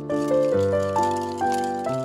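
Background instrumental music: a melody of held notes, changing about twice a second.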